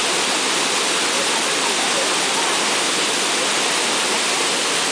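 Waterfall's white water rushing steadily over rock, close by.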